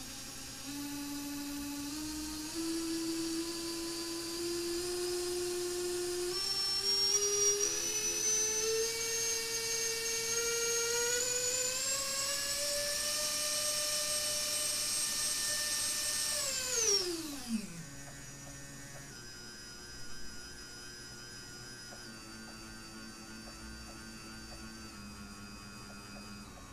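A Racerstar 2205 2300kv brushless drone motor spun up from the Betaflight motor tab. Its whine climbs in steps to full throttle, holds high, then drops sharply about 17 seconds in and runs on as a lower, stepped whine. The motors are being checked because after four months' use they make noise and vibrate at mid throttle.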